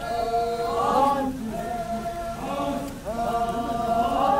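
Group of men and women chanting a traditional Naga folk song together in long held notes, some phrases sliding upward into the note.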